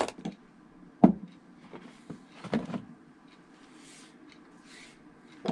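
Waxed sinew thread and hand tools being handled on a workbench: a sharp click about a second in, then a few softer knocks and light rustling.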